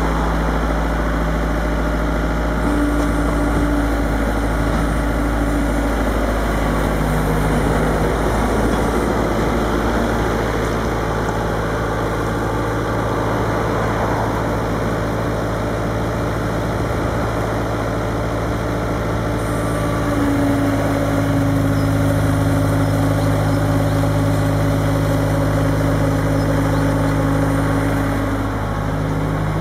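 Bobcat S130 skid-steer loader's diesel engine running, its speed changing a few times: the pitch shifts about a third of the way through and steps up and grows louder about two-thirds of the way through.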